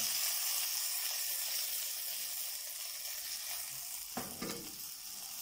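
A minced-beef burger patty sizzling steadily as it fries in oil in a stainless steel pan, pressed with a slotted spatula; the patty is starting to cook through. A brief knock about four seconds in.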